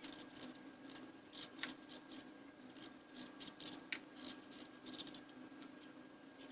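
Turnip being peeled by hand: a run of short scraping strokes as the fibrous skin is stripped off, unevenly spaced at about two a second. A faint steady hum lies underneath.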